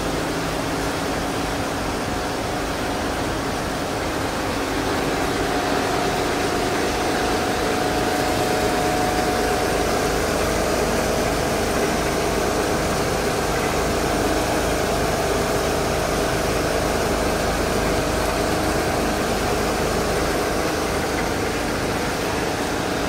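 Richpeace multi-needle quilting machine running: a continuous mechanical din from its belt-driven needle heads and fabric rollers, growing a little louder about five seconds in.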